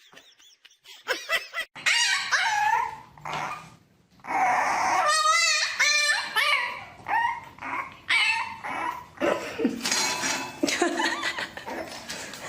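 A pet's repeated high-pitched whining and yelping calls, one after another, with a fast warbling run about five seconds in.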